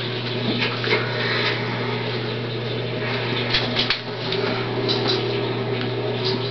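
Steady low household hum and room noise, with a few faint clicks and faint background sounds. No burp comes.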